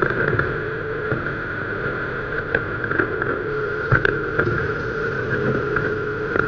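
Yanmar ViO17 mini excavator's diesel engine running at working revs, with a steady hydraulic whine. Short knocks and clanks come every second or so.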